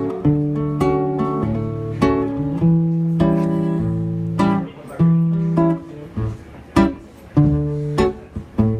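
Acoustic guitar strumming chords as an instrumental lead-in to a song. The first chords ring out, then from about halfway they are cut short and choppier.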